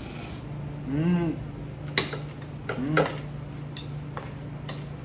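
A mouthful of buckwheat noodles slurped right at the start, then chewing with two short hummed "mm" sounds of enjoyment. Chopsticks click against the dishes a few times over a steady low hum.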